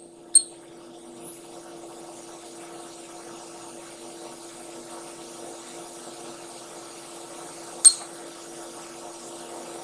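Steady electrical hum of a Yaskawa robot with its servos switched on while an axis is jogged from the DX200 teach pendant. Two short sharp clicks, about half a second in and again near eight seconds.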